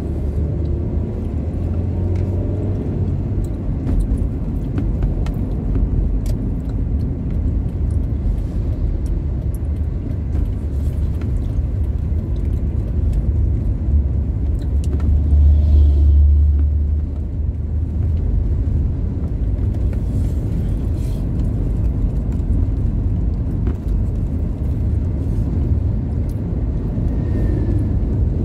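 Road and engine noise of a moving car heard from inside: a steady low rumble that swells louder for about two seconds around the middle.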